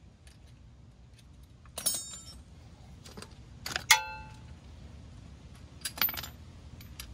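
Metal hand tools clinking against one another in a few short clusters, some strikes ringing briefly; the loudest is about four seconds in.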